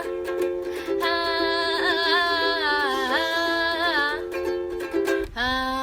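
Outro music: a wavering melody over steady held notes, with a plucked-string sound. It pauses briefly near the end, then a new held note starts.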